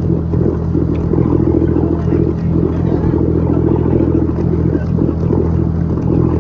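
A boat's engine running steadily: an even, low drone with a rougher hum above it, unchanging.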